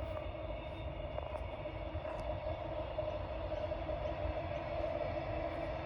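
A steady mechanical hum over a low rumble, with a few faint ticks.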